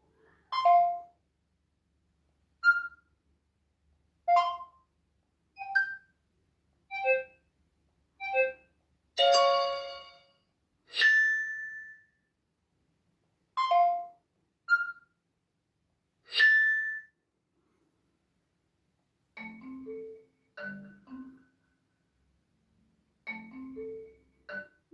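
Smartphone ringtone and notification sounds played one after another: about a dozen short, bell- and marimba-like chimes separated by complete silence, two of them ringing longer around the middle. Softer, lower multi-note tones follow near the end.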